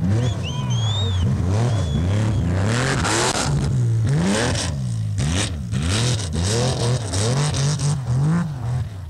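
Rally car engine revving up and down over and over, its pitch climbing and dropping as the driver works the throttle to hold the car sideways on snow.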